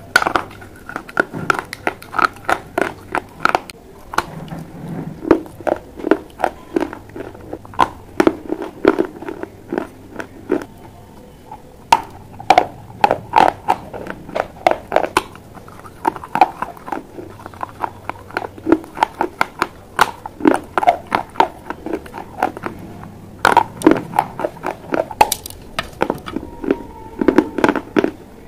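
Pieces of clay pipe being bitten and chewed right at a clip-on microphone: runs of sharp, crumbly crunches several a second, broken by short pauses between bites.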